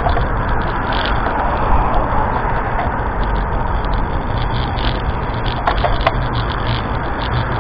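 Strong wind blowing hard across the microphone, a steady loud rush with heavy low rumbling buffets. A few sharp clicks about six seconds in.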